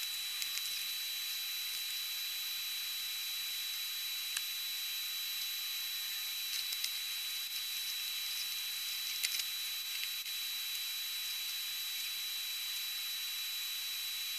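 Steady fan hiss from a bench fume extractor with a faint high whine, and a few sharp clicks of flush cutters snipping component leads off a circuit board.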